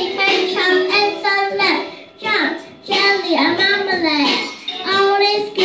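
A young boy singing a short hip-hop children's song about sandwiches into a handheld microphone, in a chanted tune that stays around one pitch, with brief pauses between lines.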